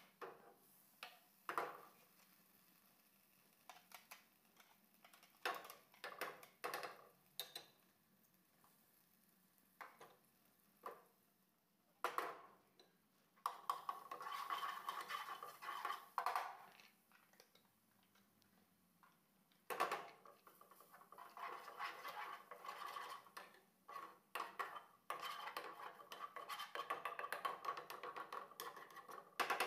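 Short scratchy rasps and knocks of a metal box grater as garlic is grated into a frying pan. Later comes a wooden spoon scraping and stirring the garlic against the nonstick pan in two longer stretches.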